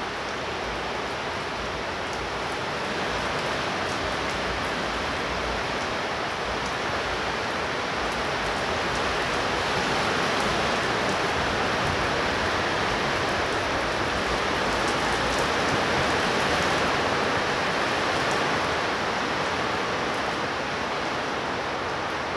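Heavy rain pouring steadily, a dense even hiss that swells a little louder in the middle and eases slightly near the end.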